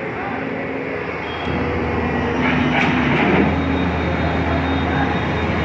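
Heavy diesel engine running with a steady low hum, from a JCB tracked excavator being loaded onto a truck's flatbed trailer.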